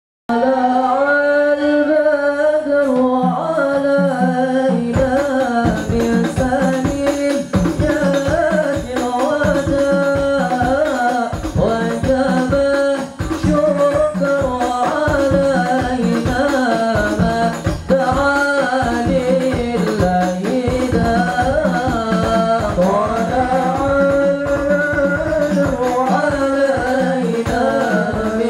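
Rebana group performing a devotional song: singing into a microphone, with frame drums joining about five seconds in and beating a steady rhythm under the voice.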